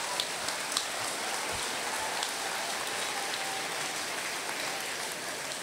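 Audience applauding: a large crowd of people clapping at once, steady throughout.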